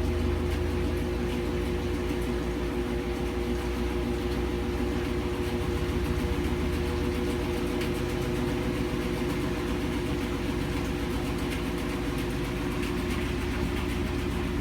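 GE GTW460ASJ4WW top-load washing machine in its high-speed spin with a load of towels: a steady motor hum with a low rumble as the tub spins and the cabinet vibrates.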